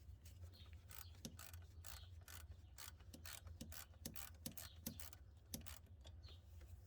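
Socket ratchet with a 12 mm short socket clicking faintly as it loosens a bracket bolt: irregular runs of sharp clicks, a few a second.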